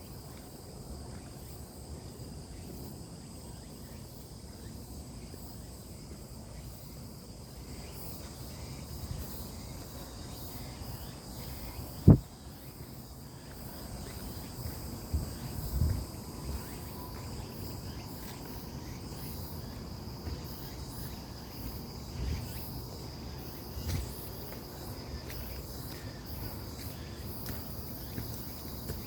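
Insects, crickets or similar, calling in a steady high drone over a low rumble. A sharp click about twelve seconds in is the loudest thing, followed by a few dull thumps.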